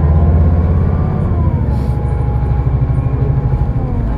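Scania K320IB bus engine and drivetrain heard from inside the moving bus: a steady low rumble with a whine that drops in pitch about a second in and again near the end.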